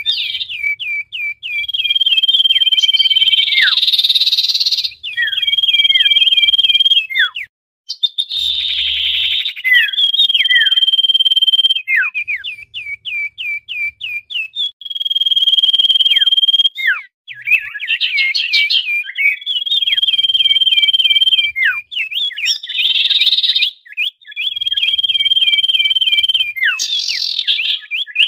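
Common iora (cipoh/sirtu) calling busily: long even whistles, each followed by a run of quick downward-slurred notes, broken every few seconds by a harsh chattering burst.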